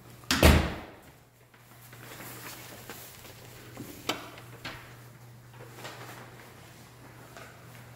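A single loud thump about half a second in, then a few light knocks and clicks, like steps and handling on a tile floor, over a steady low hum.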